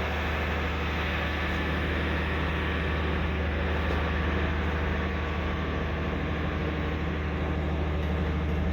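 Steady low machine hum, like a running motor or engine, holding an even drone throughout.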